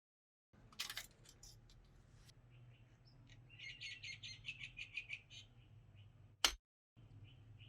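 A small bird chirping in a rapid run of high notes, roughly eight a second, with a few sharp clicks about a second in and one loud click near the end.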